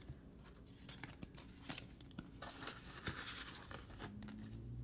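Paper banknotes and a plastic cash envelope rustling and crinkling as they are handled, with scattered short flicks and crinkles.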